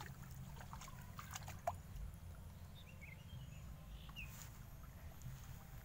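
Faint outdoor ambience by a shallow stream: a few light drips and small splashes of water, with a few faint bird chirps about three to four seconds in and a low rumble underneath.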